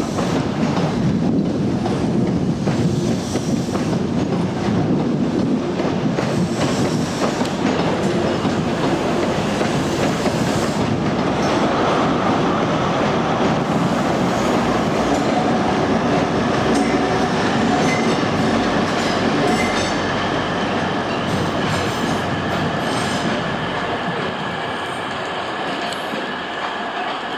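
Train wheels clicking over rail joints and points, with a thin squeal of wheels on rail from about the middle. The sound eases off near the end.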